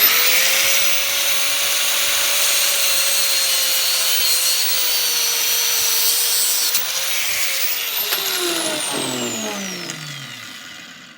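Angle grinder switched on, spinning up fast and running at a steady whine while cutting off a piece of metal. It is switched off about seven and a half seconds in and winds down with a falling whine.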